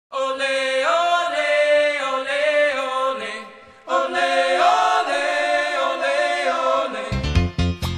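Background music of wordless choir-like singing in two long phrases, with a short break between them. Near the end a different music track starts.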